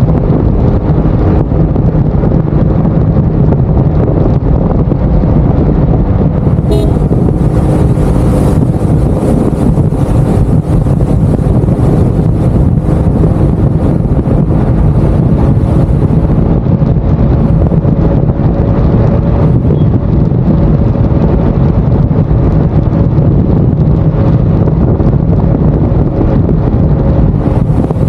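Steady wind and road rumble on the microphone of a maxi-scooter cruising at speed, with the engine's hum running underneath. A faint high hiss comes in for several seconds in the middle.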